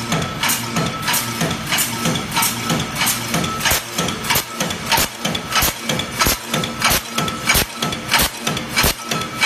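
Mechanical punch press stamping tinplate easy-open-end shells, one sharp stroke about every two-thirds of a second (around 90 a minute), over a steady machine hum.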